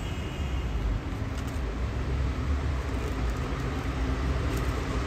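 Steady low rumble of a rubber-tyred Santiago Metro Line 5 train running through the station.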